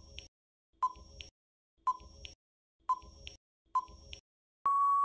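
Countdown timer sound effect: short electronic beeps at the same pitch about once a second, then one longer steady beep begins near the end as the count runs out.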